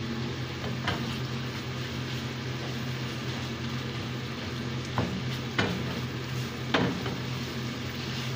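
Tuna and egg frying in a pan with a steady sizzle, while a wooden spatula stirs and scrapes, knocking against the pan a few times, mostly in the second half. A low steady hum runs underneath.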